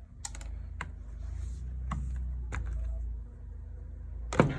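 Sharp plastic clicks and knocks from a chemical dispenser's fittings and tubing being handled while the broken black inlet fitting is taken out, about five in all with the loudest near the end, over a steady low hum.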